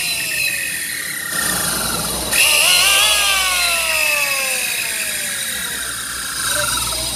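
Electric hand planer's motor and cutter drum running free with no wood, in short bursts: each time the trigger is let go the whine falls in pitch as the drum coasts down. It is switched on again about two and a half seconds in and winds down over the next few seconds.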